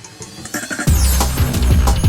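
Electronic backing music: a rising sweep leads into a heavy bass and drum beat that comes in about a second in.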